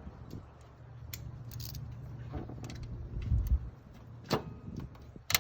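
Metal clinks and knocks of hand tools and the alternator being worked loose in a 2003 Honda Accord's engine bay, with a heavier low thud about three seconds in and a sharp clank near the end, over a low steady hum.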